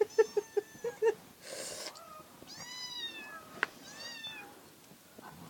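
A kitten mewing twice, in high, thin calls that fall in pitch. In the first second a child's voice trails off in short, quick pulses.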